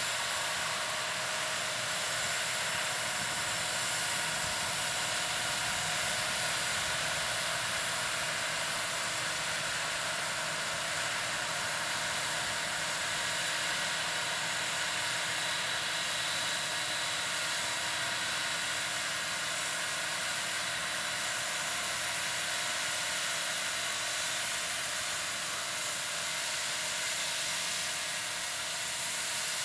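New Holland T7.290 tractor's six-cylinder diesel running steadily under load while pulling a Horsch Serto 12 SC seed drill, with a steady hiss over the engine.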